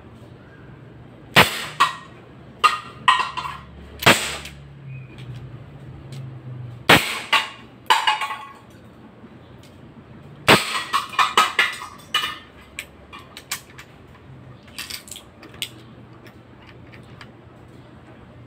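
Five sharp shots from a CO2-powered Dan Wesson 715 airsoft revolver, fired a second or few apart, each followed by a brief lighter clatter. After the last shot come a few faint clicks and rattles as the revolver is handled.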